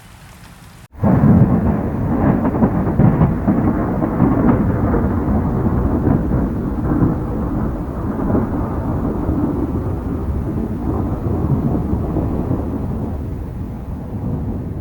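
A long roll of thunder over rain. It starts abruptly about a second in, stays loud, and slowly fades near the end. Before it there is only a quieter hiss of rain.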